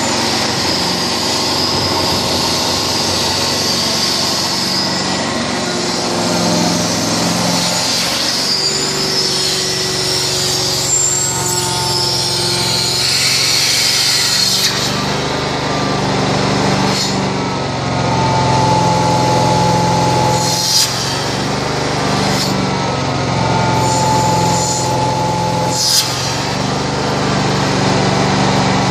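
Prochem Legend SE truckmount carpet-cleaning machine running steadily: its 22 hp engine and Sutorbilt blower give a constant hum under a strong hiss. A thin whistle comes and goes several times, and there are two short clicks in the second half.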